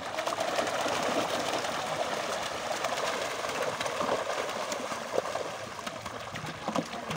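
Many fish thrashing at the surface inside a seine net drawn tight in shallow pond water: a steady churning splash full of small sharp splashes.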